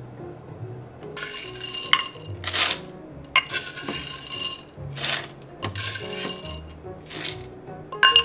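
Whole coffee beans poured from a glass jar into the bean hopper of a De'Longhi espresso machine, rattling in several surges from about a second in. Soft background music underneath.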